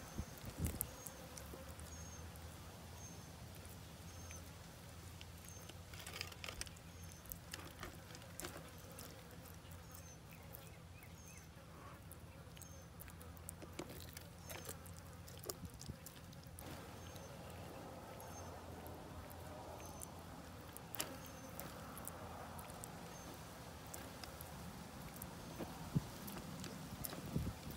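A tegu biting and chewing raw chicken: faint, scattered wet clicks and snaps. Under it runs a steady low hum, and a short high chirp repeats about once a second.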